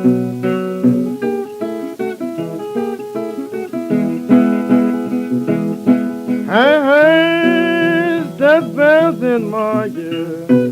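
Acoustic guitar playing a country blues on a 1928 78 rpm record. About six and a half seconds in, a voice comes in with a long rising, held and then wavering sung line for about three seconds, and the guitar then carries on alone.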